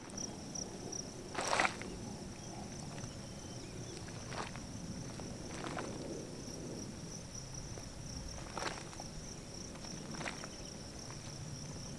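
Steady high-pitched insect trill, with a low even rush underneath and a handful of short soft pops a second or more apart.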